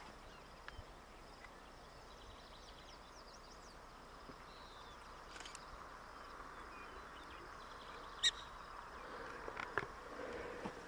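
Faint open-air quiet with scattered small high chirps, and about eight seconds in a single short, sharp, high call: the bark of a black-tailed prairie dog.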